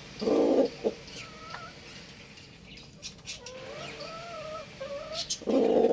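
Chickens clucking: two short loud clucks, one near the start and one near the end, with softer wavering calls in between.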